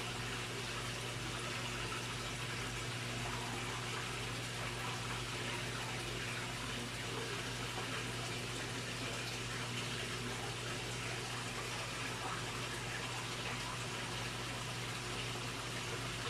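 Steady rush of running water in a fish pond, over a steady low hum.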